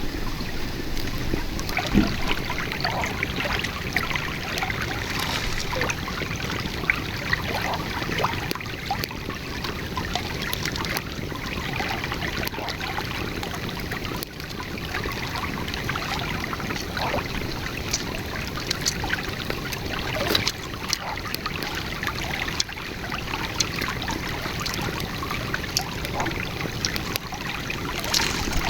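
Shallow river water flowing and babbling steadily over stones, with scattered sharp clicks and a single louder knock about two seconds in.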